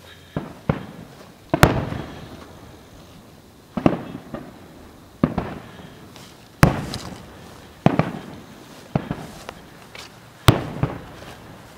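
Aerial fireworks shells bursting: about a dozen sharp bangs, roughly one a second, each trailed by a rolling echo, with the loudest reports about a second and a half, six and a half and ten and a half seconds in.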